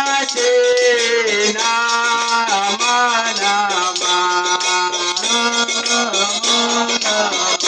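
Devotional kirtan: voices singing a chanted melody in long held notes that step up and down, over a mridanga drum and a steady jingling beat of hand cymbals.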